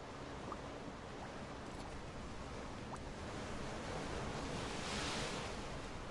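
Ocean surf washing over rocks, a steady rush of water with one wave surging louder about five seconds in.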